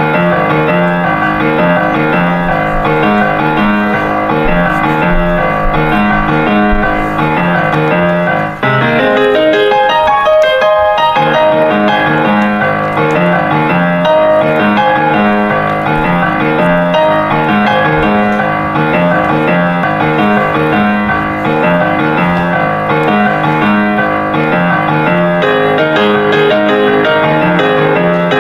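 Piano music, played at a steady loud level, its low notes dropping out for a couple of seconds about nine seconds in.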